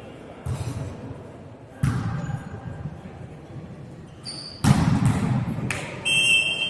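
A volleyball being struck and hitting the floor in a sports hall: several separate thuds, the loudest about two-thirds of the way through. Near the end the referee's whistle blows.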